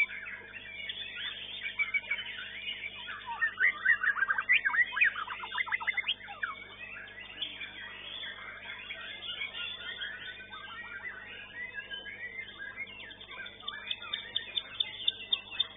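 Songbirds singing together, chiefly white-rumped shamas: an overlapping mix of clear whistles and chirps, with a burst of fast trills a few seconds in. Near the end one bird starts a steady run of sharp repeated notes, about three a second.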